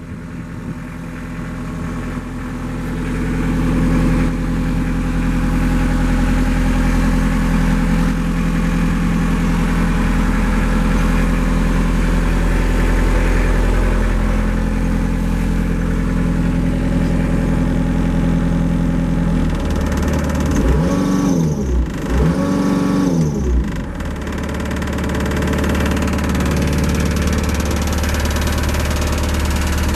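Kubota KX040 mini excavator's diesel engine running steadily, heard from inside the cab, growing louder over the first few seconds. About twenty seconds in, the engine note swings up and down twice, then steadies again.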